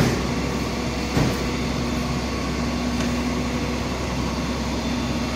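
A vehicle engine idling steadily with a constant hum, and two short knocks about a second apart near the start.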